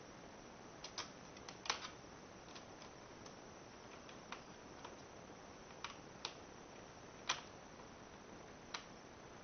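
Small screwdriver driving a screw into a plastic laptop screen bezel, with a dozen or so light, irregularly spaced clicks and ticks over faint hiss.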